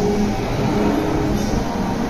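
FEMCO WBNC-100 CNC table-type boring machine running: a steady mechanical hum with several tones that shift slightly in pitch.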